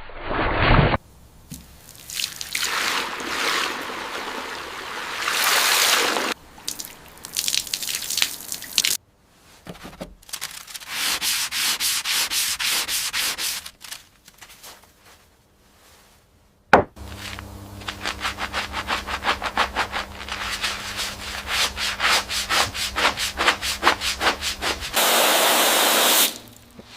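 Rust being sanded and scrubbed off an old hammer, in several bursts of rapid back-and-forth strokes. There is one sharp knock partway through.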